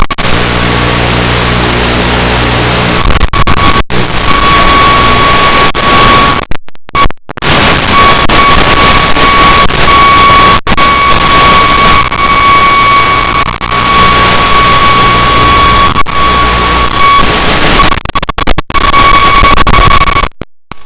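Loud static hiss from an analog FPV video link, with a steady high tone running through it. It cuts out briefly several times, the longest gap about six and a half seconds in.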